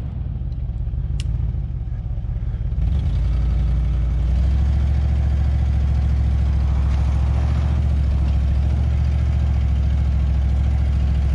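Land Rover Discovery's V8 engine running under load as the driver tries to pull the stuck truck off the snowy slope, testing traction with track grabbers strapped to two of the tyres. The revs step up about three seconds in and again a second or so later, then hold steady.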